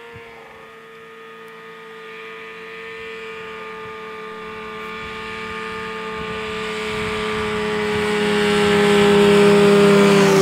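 Older Arctic Cat snowmobile engine running at a steady pitch as the sled approaches, getting steadily louder, with the pitch dropping slightly as it passes close by near the end.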